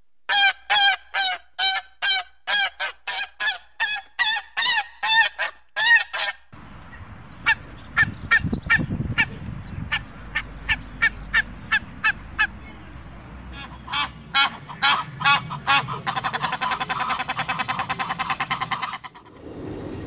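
Domestic geese honking: a fast run of loud honks about three a second, then more spaced calls, and near the end a rapid, chattering run of calls.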